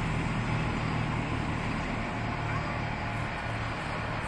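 Steady low rumble of road traffic, with an even hum underneath.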